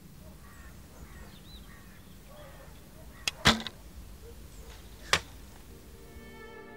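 A bow shot: a sharp double snap about halfway through as the bowstring is released, then a single sharp crack about a second and a half later. Faint bird calls in the background.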